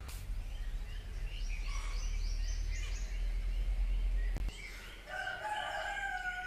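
Birds calling in the open air, with many short repeated chirps. About five seconds in comes a long drawn-out call that sounds like fowl. A low rumble sits under the first part.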